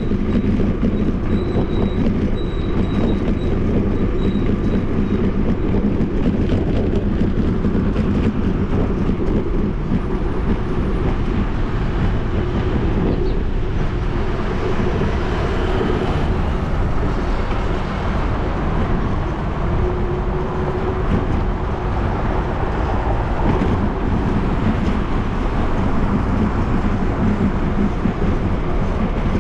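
Steady rumble and rattle of a bicycle rolling along a paved concrete bike path, picked up by a GoPro mounted on the bike.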